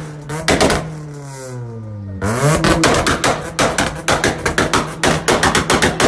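A tuned car's exhaust popping and crackling in rapid volleys of sharp bangs, several a second, as the engine is revved. Between the two volleys the engine's revs are heard falling away, then blipped up again.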